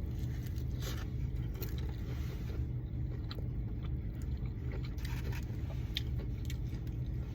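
A person eating fried chicken, with faint scattered clicks and scrapes of chewing and handling the food over a steady low hum.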